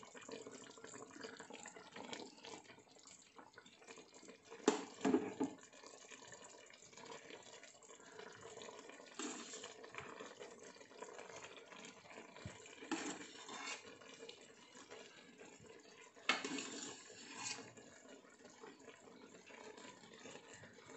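Faint bubbling of chicken masala simmering in a steel pot while cooked rice is spooned on top as the first layer of a dum biryani. There are a few short knocks and scrapes of a steel spoon against the pot, about four seconds apart.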